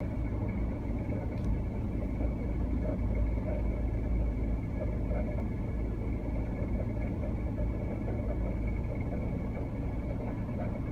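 Subaru Legacy (BR9) engine running steadily, with a constant high-pitched whine over the low engine rumble. It is an abnormal noise that appeared after a new genuine factory belt was fitted.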